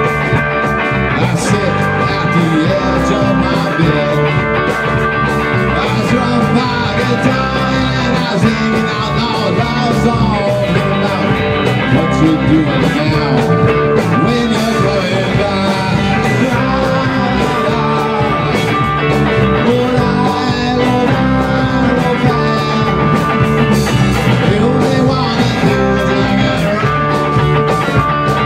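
Rock band playing live: distorted electric guitars, bass guitar and a Tama drum kit keeping a steady beat.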